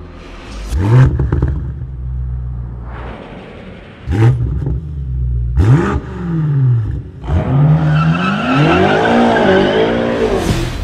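BMW M8 Competition's twin-turbo V8 through an Akrapovič titanium slip-on exhaust, revving hard: a sharp rise about a second in and two quick throttle blips around four and six seconds that fall back each time. From about seven seconds the revs are held high and swing up and down while the tyres squeal as the car drifts.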